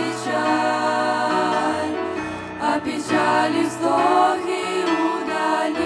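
A group of teenage girls singing a Christian song together, over instrumental accompaniment that holds low notes.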